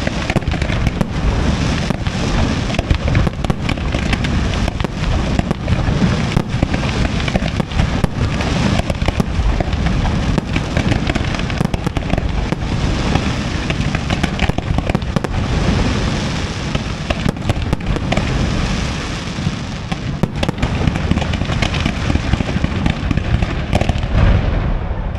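Aerial fireworks display by Pirotecnia Valenciana: a dense, unbroken barrage of bangs and crackle with a constant low rumble, the high crackle thinning out near the end.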